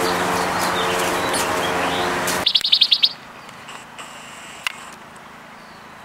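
Songbirds chirping. A quick high trill of about eight notes comes right after a steady droning background noise cuts off suddenly, then a few faint scattered chirps follow.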